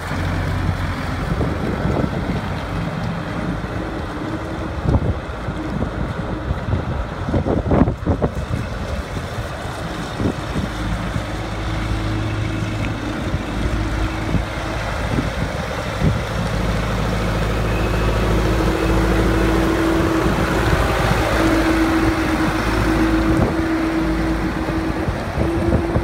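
Diesel engine of a 1998 New Holland 655E backhoe loader running as the machine drives along. The engine note rises and holds steadier and louder from about two-thirds of the way in.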